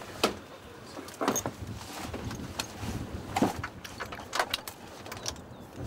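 Scattered sharp clicks and knocks of crew handling harnesses, buckles and equipment in a helicopter cabin, over a steady low rumble.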